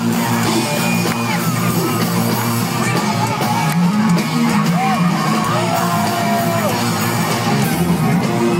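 Live rock band playing loud over a PA, electric guitars under a singer's voice that yells and holds long notes, one held for about a second just past the middle.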